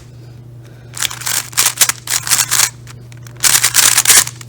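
Speedcube being turned fast during a solve: rapid clicking and clacking of plastic layers, in two quick spells with a short pause between, over a steady low hum.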